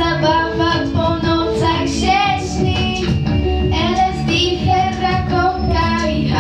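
A young girl singing with music accompaniment, her held notes wavering in vibrato.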